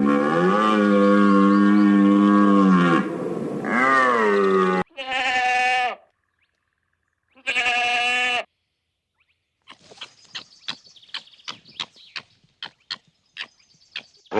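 Bleating calls of a sheep or goat: a long bleat of about three seconds that drops in pitch at its end, then three shorter bleats. After them comes a quieter run of short, rapid clicking pulses.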